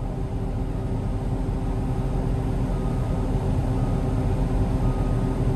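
Heavy earthmover diesel engines running hard under load as the Cat 657 scraper is pushed, a steady rumble that builds slowly. A faint beeping alarm sounds about once a second from about halfway in.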